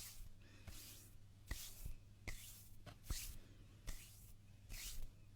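Hands rubbing together in slow, repeated strokes, each a soft swishing hiss that begins with a faint click, about six strokes, a little more than one a second.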